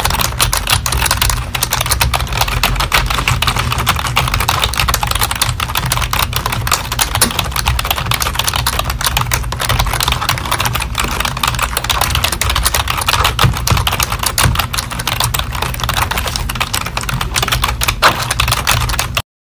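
Keyboard typing: rapid, continuous key clicks that cut off suddenly near the end.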